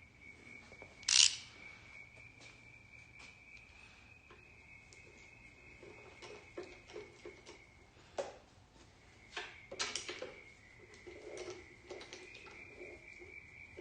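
Metal hand tools clinking and knocking against engine parts while the rocker cover is being unbolted. A sharp clank comes about a second in, and scattered knocks and small clicks follow later. A faint steady high whine runs underneath.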